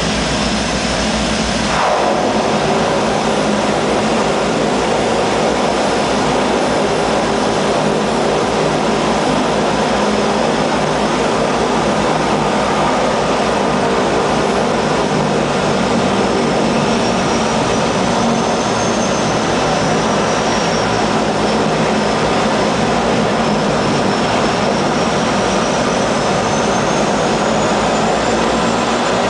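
Seaplane's turboprop engines running steadily, heard loud from inside the cabin as the floatplane moves on the water. A faint high whine rises and falls in pitch in the second half.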